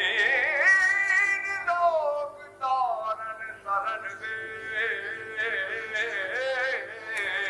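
Music: a solo voice singing a melody with a wavering vibrato in long phrases, over a steady held accompaniment tone.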